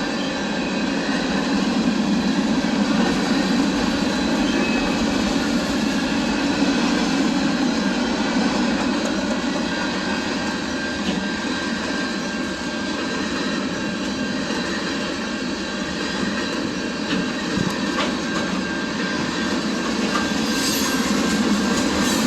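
A train rolling past at close range, a steady loud rumble of wheels on the rails, with a thin high wheel squeal joining about halfway through.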